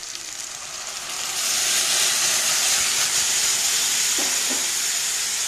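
Sour buttermilk poured into a hot kadai of oil-fried green chillies, hissing loudly as it hits the hot oil. The hiss swells about a second in and then holds steady.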